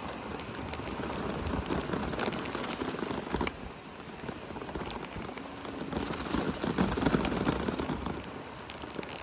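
Segway tyres rolling over a wet, sandy trail: a steady rush of noise full of small crackles, swelling and easing as it goes.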